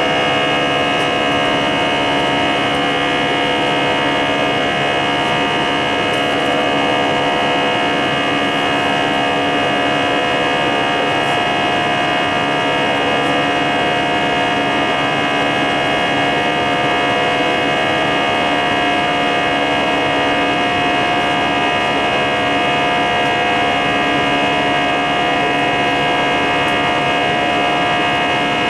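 Airliner's jet engines and airflow heard from inside the passenger cabin: a loud, steady drone with several steady whining tones over a continuous hiss.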